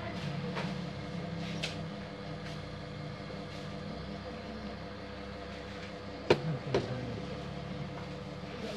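Hard plastic knocks and light clicks from a copier drum unit's parts being handled, with two sharper knocks close together about six seconds in, over a steady low hum.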